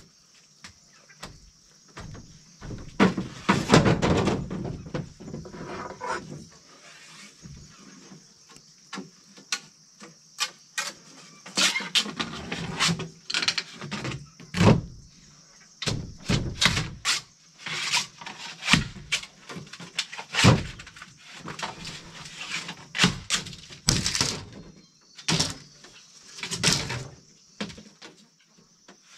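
Dozens of irregular knocks and clatters, some in quick runs, over a steady high-pitched hiss.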